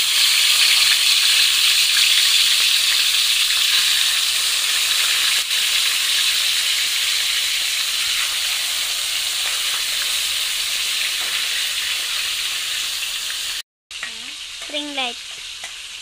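Chicken drumsticks deep-frying in hot oil in a wok: a loud, steady sizzle that slowly eases, with the occasional scrape of a slotted metal spatula turning the pieces. The sound drops out for a moment near the end and comes back as a quieter sizzle.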